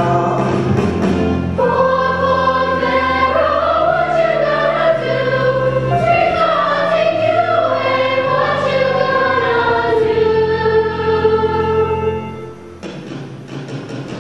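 Ensemble chorus of a stage musical singing long held notes over band accompaniment. About 12 seconds in the sound drops to a quieter lull, then the music starts up again near the end.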